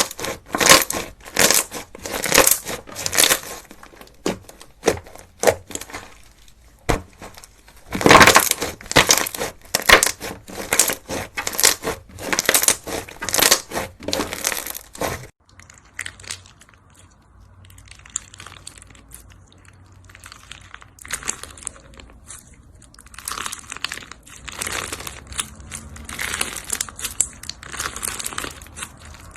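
Crunchy slime being squashed and pressed, giving rapid bursts of crackling and crunching. The bursts are loud through the first half, then cut off suddenly about halfway. After a short lull they come back as quieter, crisper crackling.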